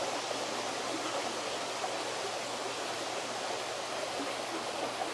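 A creek's flowing water, a steady, even rush with no breaks.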